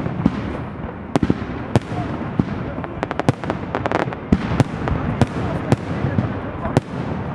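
Aerial fireworks display: repeated sharp bangs of bursting shells over a continuous rumble, with a quick run of crackling pops about three to four seconds in.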